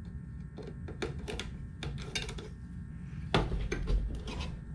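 Irregular small clicks and taps of hands working a factory car stereo's metal chassis and mounting bracket as a piece is taken off, with a few heavier knocks against the table near the end.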